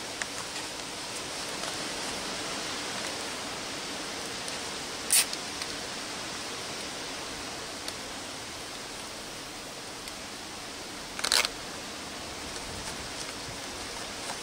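Nylon cable ties being pulled tight around cables on a bicycle frame: two short ratcheting zips, one about five seconds in and a quicker run of ticks about eleven seconds in, over a steady background hiss.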